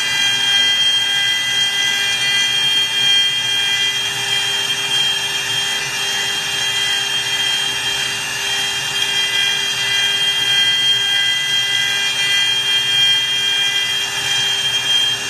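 CNC router spindle running with a steady high whine as its end mill carves a wooden dowel turned by the rotary fourth-axis chuck, with the hiss of the cutter in the wood beneath it.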